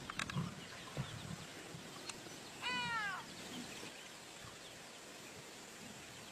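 A single short animal cry, falling in pitch, about three seconds in, over a faint steady outdoor background with a few small clicks.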